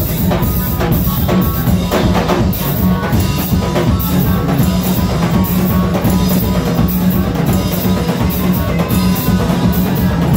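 Live church praise band music: a drum kit keeping a steady beat, with electric guitar.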